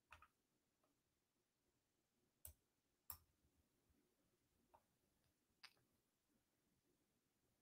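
Near silence, broken by a handful of faint, scattered clicks.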